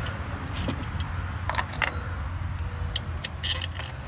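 Light clicks and knocks of metal and plastic parts being handled in a car engine bay, about half a dozen spread over a few seconds, as the throttle body is fitted back onto its dowel pins. A steady low hum runs underneath.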